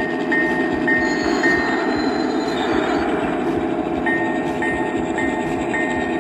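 G-scale model F-unit diesel locomotive running out of its engine shed with a steady rumble. A short bell-like ding repeats about twice a second, stops for a couple of seconds in the middle, then starts again.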